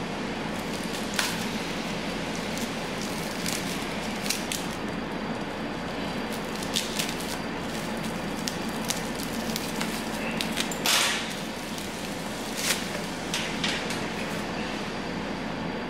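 Small scissors snipping and plastic wrapping crinkling as a package is cut open and peeled: scattered short clicks and crackles, with a longer rustle about eleven seconds in, over a steady hiss.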